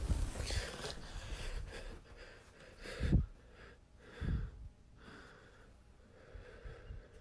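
A person breathing heavily and unevenly close to a phone microphone, with two louder low puffs about three and four seconds in.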